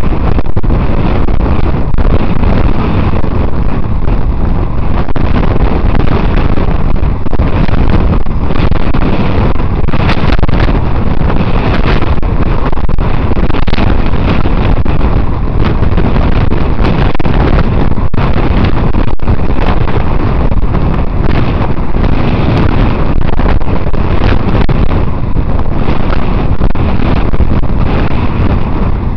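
Loud, steady wind rush buffeting the microphone of a camera carried on a moving bicycle.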